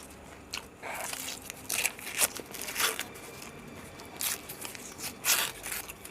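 Close-miked eating of an Indian egg roll: a string of short crunchy bites and chewing noises at uneven intervals.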